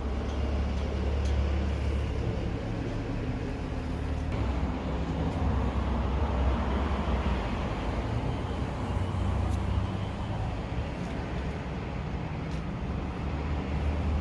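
Road traffic passing: a steady low rumble of vehicles, with a broad swell of tyre and engine noise as a vehicle goes by in the middle.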